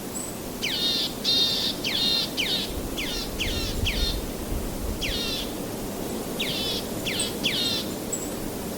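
A songbird calling in runs of quick downward-sweeping notes, four or five at a time, three groups and a single note, over a steady rushing noise of waves.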